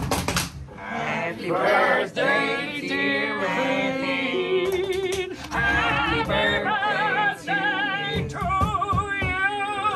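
Music with singing voices; in the second half the voices hold notes with a steady vibrato.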